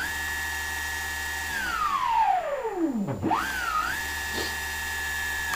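Astro 3220 sensored brushless motor, fitted with optical position sensors and run on 24 volts from a hand throttle, whining steadily at high speed. About a second and a half in it spins down, the pitch gliding low, then it spins back up and holds high again.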